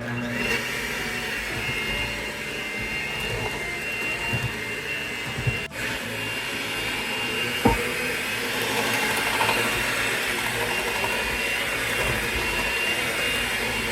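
Electric mixer running steadily on its lowest speed, beating banana muffin batter, with a couple of brief knocks partway through.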